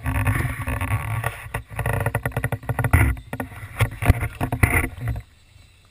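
Handling noise from a GoPro on a monopod down an ice-fishing hole: rapid knocks and scrapes with water sloshing. It stops abruptly about five seconds in.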